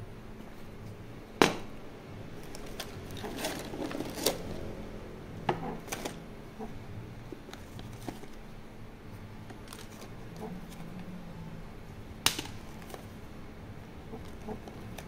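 Hands rummaging through a hard case of old cards and papers: scattered sharp clicks and clatter of cards and small objects knocking together, the sharpest about a second and a half in and again near the end, with a busier patch of handling in between.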